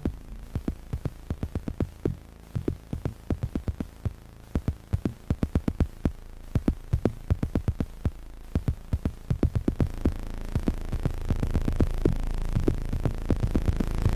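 Electronic techno music made in Drambo on iPad, in a stripped-down passage: a fast, uneven stream of short clicky synth hits over a low droning bass. The bass swells over the last few seconds.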